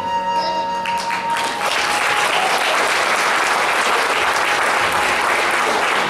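Audience applauding. It builds up about a second in as the last held notes of the scene's music fade out, then stays steady.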